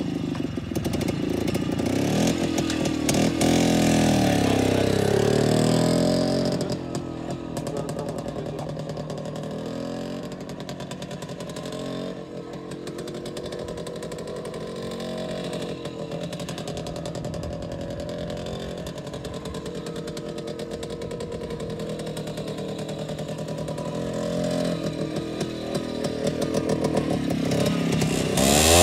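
WSK 125's two-stroke single-cylinder engine, revved up and down several times near the start. It then runs more faintly as the motorcycle rides off, and grows louder again near the end as it comes back.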